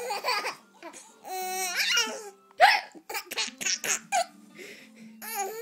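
A baby laughing in bursts at pretend hiccups. One sharp, loud hiccup noise comes about two and a half seconds in, followed by a run of quick high-pitched giggles.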